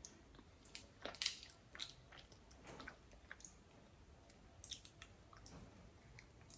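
Boiled crawfish being peeled and eaten close to the microphone: shells cracking and wet chewing and mouth sounds, heard as scattered short clicks and smacks. The loudest comes about a second in, with another just before the five-second mark.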